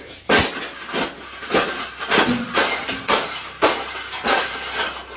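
A series of sharp bangs and rattles, about two a second, each ringing on briefly.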